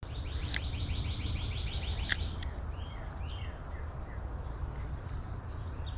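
Small birds calling: a fast trill of repeated falling chirps in the first second and a half, then scattered short whistled notes. A sharp click about two seconds in, all over a steady low rumble.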